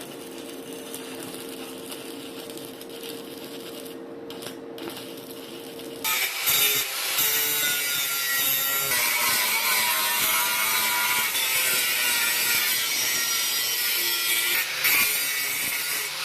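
Angle grinder running with a steady hum, then biting into steel about six seconds in with a loud, continuous rasping grind that holds to the end.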